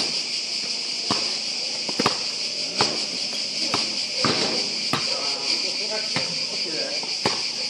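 A steady, high-pitched chorus of insects, with a basketball bouncing sharply on the hard outdoor court several times at irregular intervals.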